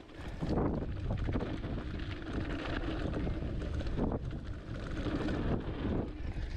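Wind buffeting the microphone and knobby tyres rolling over a bumpy grass-and-dirt trail on a hardtail mountain bike moving downhill, with the bike clattering over the bumps. The noise rises about half a second in as the bike picks up speed.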